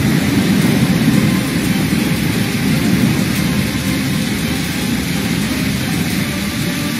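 Heavy rain and fast-flowing floodwater rushing down a street, a steady noise with no breaks.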